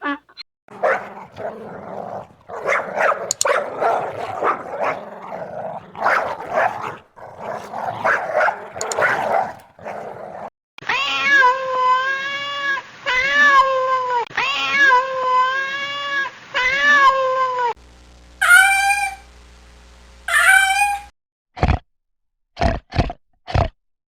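Domestic cats meowing and yowling in a string of separate clips. First comes a run of rough, harsh yowls, then five long meows one after another, then two shorter, higher meows and a few brief sharp calls near the end.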